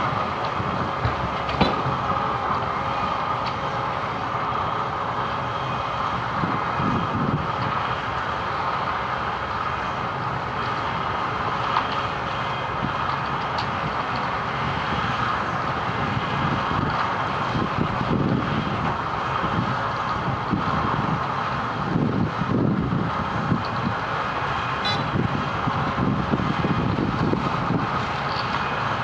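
Wirtgen W210i cold milling machine at work: heavy diesel machinery running steadily, with a low rumble that swells and eases every few seconds and a few short clicks.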